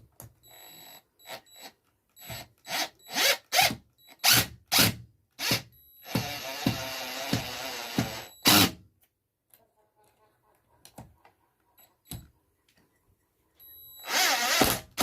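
Stanley Fatmax V20 cordless impact driver driving a screw in a string of short trigger bursts, then a longer run of about two and a half seconds, with a brief burst right after. After a few quiet seconds, another short burst comes near the end.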